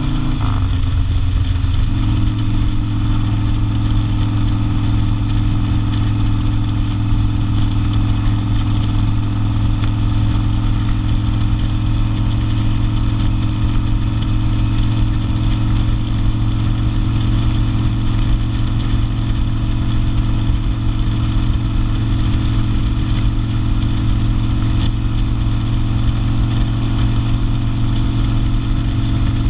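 Harley-Davidson Sportster V-twin with open exhaust: engine speed dropping in the first couple of seconds, then holding at a steady, even beat.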